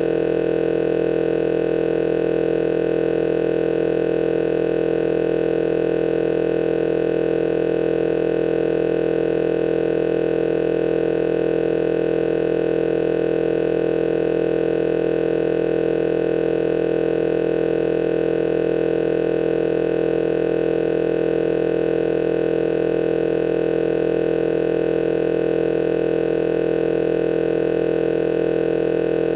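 Loud, steady electrical hum, a buzzing drone that holds one unchanging pitch with no breaks. It fills the gap where the speech cuts off and the picture freezes, which points to a recording or playback glitch.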